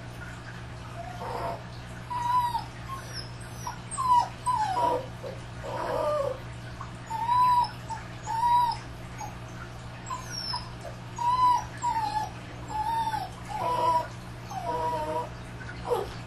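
Dogs whining and crying in a steady run of short cries that arch up and down in pitch, roughly one a second and sometimes overlapping, over a steady low hum.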